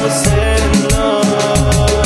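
Instrumental stretch of a Latin urban pop song: a steady beat with regular deep bass hits under sustained melodic lines, without vocals.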